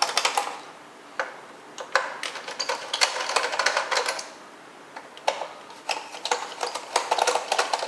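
Phillips screws being unscrewed from a Roomba's plastic bottom faceplate with a screwdriver: several bursts of rapid clicking and scraping with short pauses between them.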